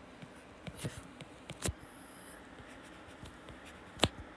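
Stylus tapping and sliding on a tablet screen as an equation is handwritten: a few sharp taps, the loudest about four seconds in, with fainter ticks between.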